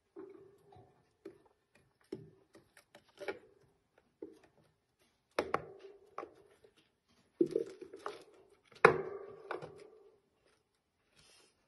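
A hamster scrabbling about a plastic cage house with a wooden chew stick: irregular light taps and scrapes, with sharper knocks about five and a half, seven and a half and nine seconds in.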